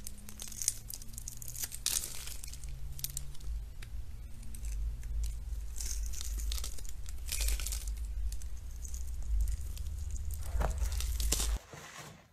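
A utility blade cutting into a bar of soap: repeated crisp, crackling crunches as the scored cubes break away, over a low steady hum. The cutting stops abruptly about a second before the end.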